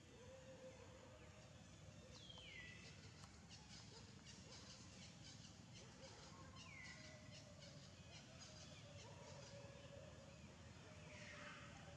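Faint outdoor ambience with a bird's short falling whistled call, heard three times a few seconds apart, and faint ticking in between.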